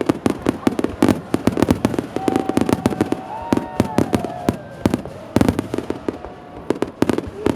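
A starmine fireworks barrage: shells bursting in rapid succession, many sharp reports a second. There are louder clusters about a second in and again about five and a half seconds in, and a brief thinning shortly before the end.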